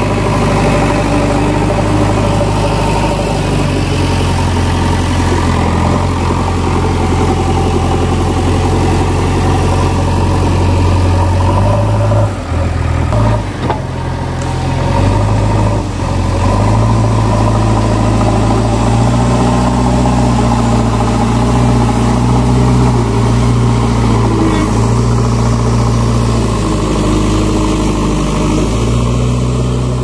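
JCB backhoe loader's diesel engine running under working load as the front loader shifts soil, its note stepping up and down as the throttle and load change. About twelve seconds in, the engine note dips and wavers for a few seconds, then picks up again.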